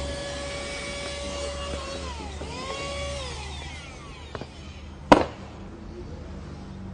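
Handheld cordless car vacuum cleaner's motor whining steadily, then dropping in pitch about two seconds in, picking up briefly and winding down. A sharp click about five seconds in.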